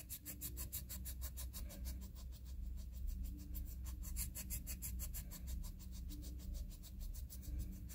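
Faint, quick, evenly spaced strokes of a fine reed file across the blade of a Bonanza-cane bassoon reed, thinning the right side and corner, over a steady low hum.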